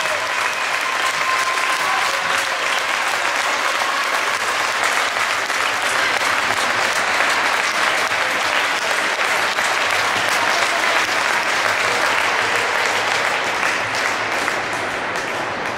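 Audience applauding: dense, steady clapping that eases a little near the end.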